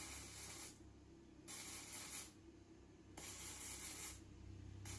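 Very faint background hiss that cuts in and out several times over a steady low hum, close to silence.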